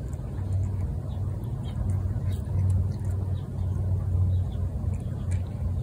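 Low rumbling hum that swells and fades unevenly, with faint crisp clicks of a cat crunching dry kibble from a bowl.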